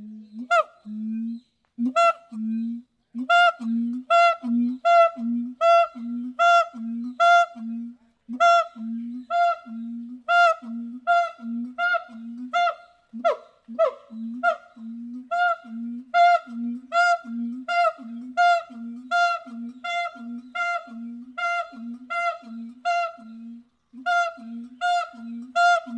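A monkey calling in a long, even series of short, repeated calls, about one and a half a second, each on the same pitch.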